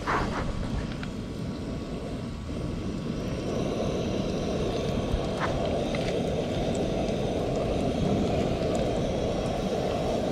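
Battered snook fillets deep-frying in a pot of hot oil over a single-burner Coleman camp stove: the burner's steady roar with the oil bubbling, and a few sharp pops. The roar gets a little louder a few seconds in.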